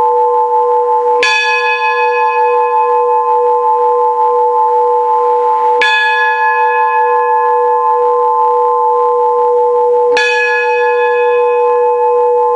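Church bell rung by hand with the cord on its clapper: three strikes about four and a half seconds apart, each ringing on so the tones overlap into a continuous hum.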